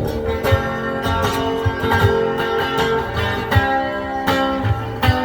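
Guitar-led music with chords and a low bass line, no singing: the instrumental closing bars of a country song.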